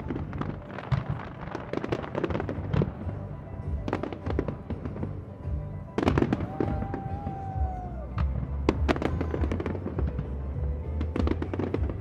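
Aerial fireworks salute: shells bursting overhead in a rapid, irregular series of bangs and crackles, with a heavier bang about six seconds in.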